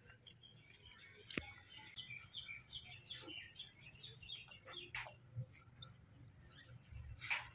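Small birds chirping, mixed with scattered clicks and smacks from people eating by hand. There is a sharp click about a second and a half in and a louder burst near the end.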